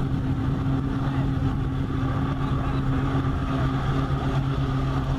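A motorboat engine running steadily at an even pitch.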